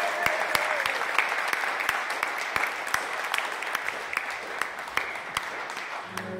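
Audience applauding in a hall, the clapping thinning out and fading toward the end.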